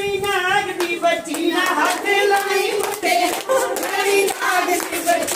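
Several women singing together with rhythmic hand clapping.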